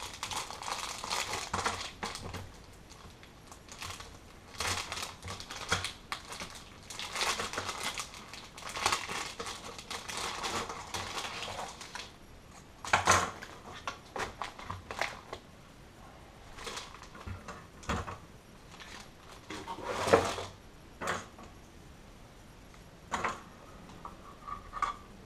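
A plastic packaging bag crinkling as it is opened and handled. After it is set down, there are scattered clicks and knocks while Wi-Fi antennas are fitted to the circuit board's connectors.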